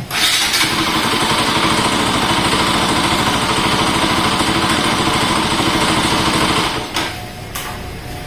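Single-cylinder engine of a Rouser NS200 motorcycle running loudly and steadily with a fast, even pulsing. The sound then drops away about 7 seconds in. This is the very loud noise first taken for a bad connecting rod, later traced to a loose, unfastened balancer gear.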